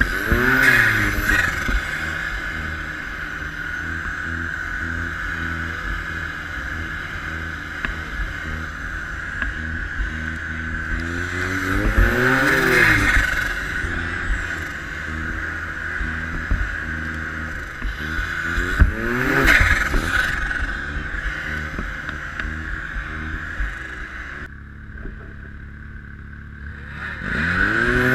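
Arctic Cat XF 1100 Turbo snowmobile running hard across snow, its engine pitch swelling up and falling back several times with the throttle. It eases off briefly near the end, then revs up again.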